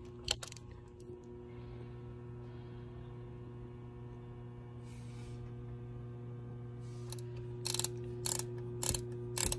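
Ratcheting wrench clicking as it tightens the impeller-housing cover screws on the raw-water pump: a run of sharp metallic clicks in the last few seconds, over a steady low hum.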